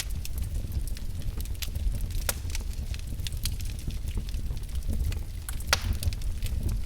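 Wood fire burning in a fireplace: a steady low rumble of flames with irregular crackles and pops, one sharper crack near the end.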